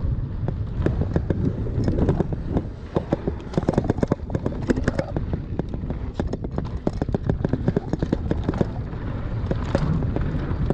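Mountain bike descending a rough dirt trail: a dense run of irregular clattering knocks as the wheels and bike jolt over the loose, bumpy ground, over a steady low rumble of wind on the bike-mounted microphone.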